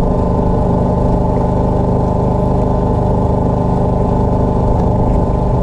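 Small fishing boat's engine running steadily at a constant speed, an even drone with an unchanging pitch.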